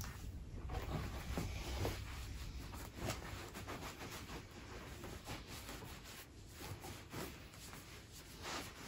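Faint rustling and brushing of a cloth towel rubbing a bare foot dry, with scattered soft handling noises.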